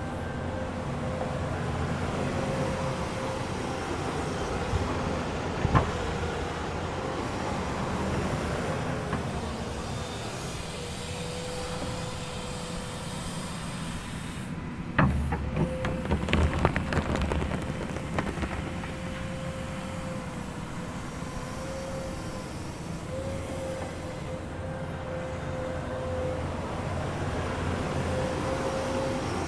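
Komatsu excavator running, its engine noise steady with a wavering whine above it. A single sharp knock comes about six seconds in, and around the middle there is a cluster of clanks while the engine grows louder and deeper for a few seconds.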